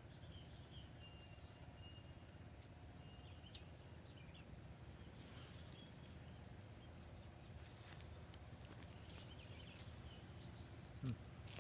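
Faint insect chirping: short high chirps repeating evenly at two pitches, a little under two a second. A soft thump comes near the end.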